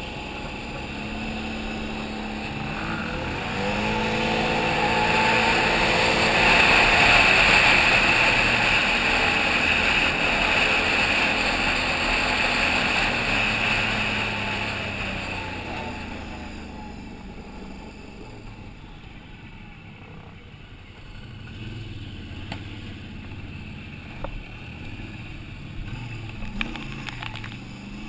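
Can-Am Outlander 800's V-twin ATV engine speeding up and running hard, with heavy wind rush over the helmet camera at its loudest, then easing off to quieter, lower running after about 16 seconds. A few light clicks come near the end.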